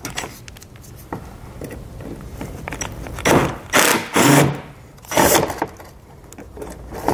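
Screwdriver backing T15 screws out of a bracket on a plastic front bumper fascia: a few short rasping bursts with light clicks of the tool and plastic between them.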